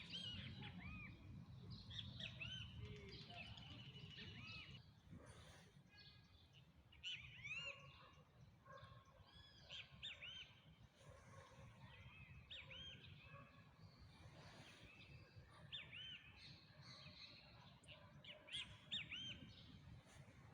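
Faint songbird calls: many short arching whistled notes, repeated irregularly, over a low steady rumble.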